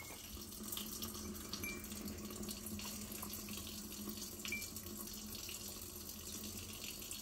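Water running steadily from a kitchen faucet into the sink, with a faint low hum underneath.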